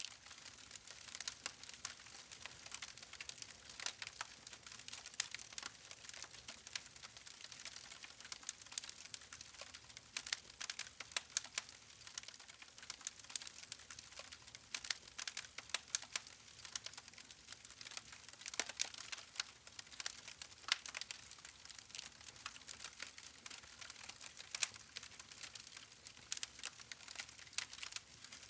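Wood campfire crackling: a steady stream of small, irregular snaps and pops over a faint hiss of burning.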